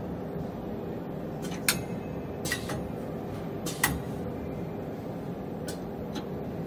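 Automated conveyor boat loader running: a steady mechanical hum broken by sharp clicks and clacks of its mechanism, three loud ones in the first four seconds and two fainter ones later.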